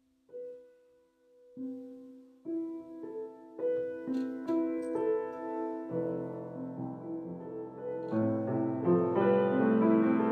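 Solo piano played slowly: single notes enter one at a time and are left ringing over each other, thickening into full chords from about six seconds in.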